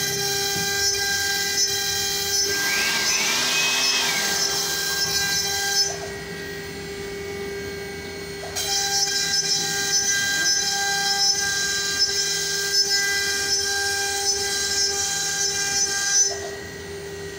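CNC router spindle running with a steady high whine while its bit cuts a Greek-key pattern into a wooden board, with a hiss from the cutting over it. The hiss drops away twice, for about two and a half seconds around six seconds in and again near the end, leaving only the whine.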